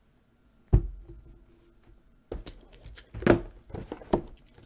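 A cardboard trading-card box being handled: one sharp thud under a second in, then from about two seconds in a run of knocks and rustles from the box and its plastic shrink wrap.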